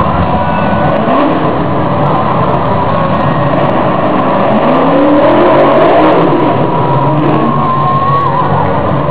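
Monster truck engines running loud and revving, rising in pitch about a second in and again near the middle, loudest around six seconds in.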